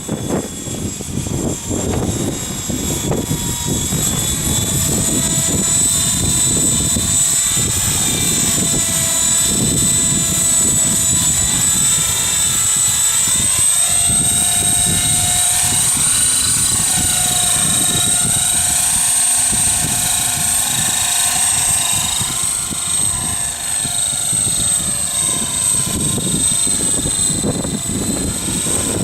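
HK-T500 radio-controlled model helicopter flying, with a steady high-pitched motor and rotor whine whose pitch drifts up and down as it is pushed around. A rough low wind rumble on the microphone runs underneath.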